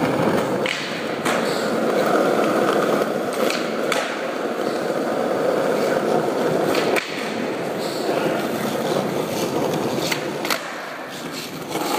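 Skateboard wheels rolling on street asphalt, a steady rough rumble, with several sharp clacks of the board a few seconds apart from tail pops and landings during flatground tricks. The rolling is quieter near the end.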